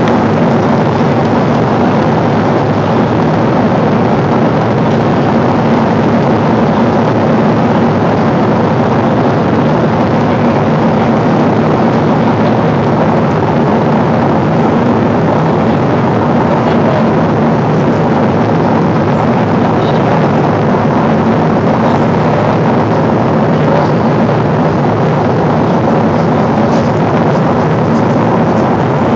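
Steady cabin noise inside a Boeing 777 airliner in flight: the rush of air along the fuselage and the hum of its engines, even and unbroken with a few faint steady tones in it.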